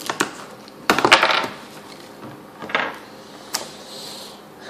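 Handling noise from unboxing small hard items: a few sharp clicks and clattering knocks as parts and packaging are picked up and set down, the loudest cluster about a second in.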